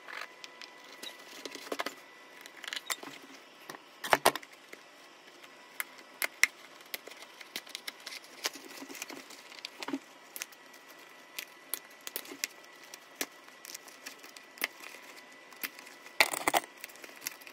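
Irregular clicks, clinks and knocks of hand tools working on leather boots being taken apart, over a faint steady high tone.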